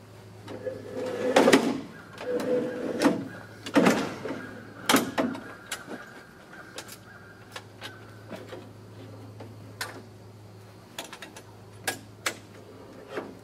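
Knocks, clunks and scraping from the RCA TR-70B quadruplex recorder's hinged metal front monitor panel as it is pulled out and swung open by hand. The knocks are densest and loudest in the first few seconds, then thin to scattered light clicks.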